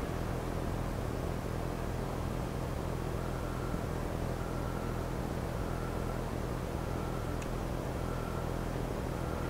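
Steady room noise: a hiss with a low hum under it, and a faint short tone repeating about once every second. A single light click about seven seconds in.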